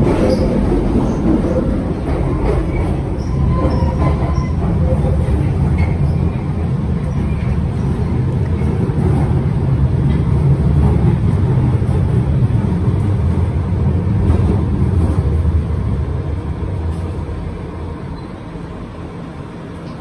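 1972 Stock Bakerloo line tube train running, heard from inside the carriage: a loud, steady low rumble of wheels and motors that dies down over the last few seconds.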